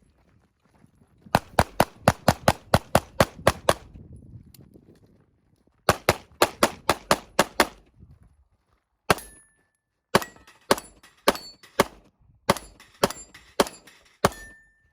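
Semi-automatic rifle fire in quick strings: about a dozen rapid shots, a short pause, seven or eight more, then a single shot and a slower run of shots. A brief metallic ring follows some shots, the sound of steel targets being hit.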